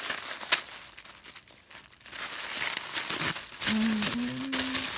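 Paper wrapping crinkling and rustling as a wrapped package is unwrapped by hand, with a sharp click about half a second in. Near the end comes a short hummed note.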